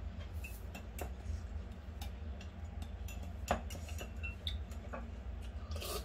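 Metal teaspoon stirring a drink in a ceramic mug, tapping and scraping against the sides in scattered light clinks, one louder clink about three and a half seconds in.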